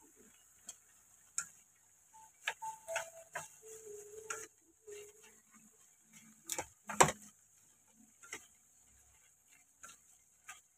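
Wooden chopsticks clicking and knocking against a metal wok while stir-frying squid with celery and green onions: irregular taps, with the loudest knocks about seven seconds in.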